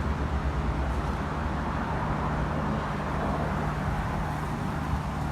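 Street traffic noise dominated by a steady, low engine hum from a nearby vehicle.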